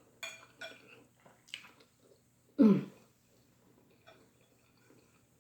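A person eating a first bite: a few short wet mouth clicks and smacks, then about halfway through one short vocal sound falling in pitch, like a pleased "mm" or grunt.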